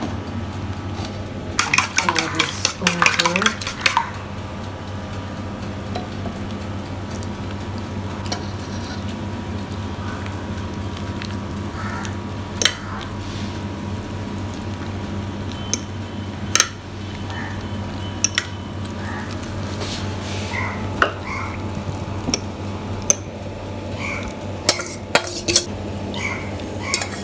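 A spoon clinking and scraping against a bowl and baking dish, with a dense run of clatter about two seconds in and scattered clinks after that. A steady low hum runs underneath.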